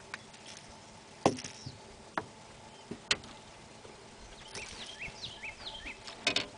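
Small birds chirping in short repeated calls a little past the middle, over a faint steady hum, with a few sharp knocks and clicks scattered through; the loudest knock comes about a second in.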